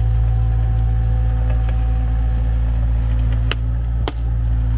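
Mini excavator's engine running steadily as its bucket digs a trench, with two short sharp knocks about three and a half and four seconds in.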